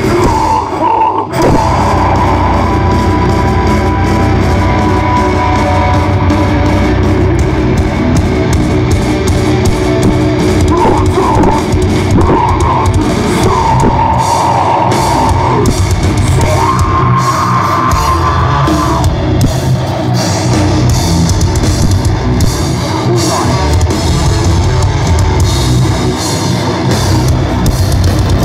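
Metalcore band playing live at full volume: heavily distorted electric guitars over fast, dense drumming with crashing cymbals.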